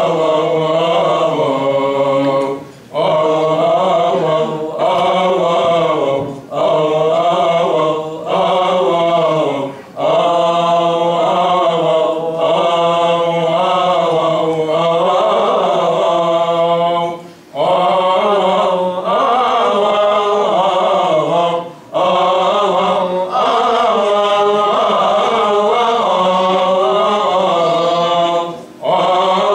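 Coptic Orthodox liturgical chant: a sung line with a wavering, ornamented pitch, held in long phrases broken by short breaths every few seconds.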